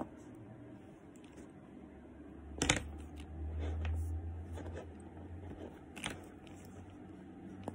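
Handling noise of a leather handbag being moved and its handle scarf adjusted: a sharp click a little before the halfway point and another past three-quarters, with a low rumble of handling between them.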